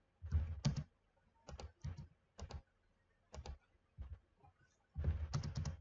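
Computer keyboard keystrokes and mouse clicks: about a dozen separate short taps, with a quicker run of keystrokes near the end.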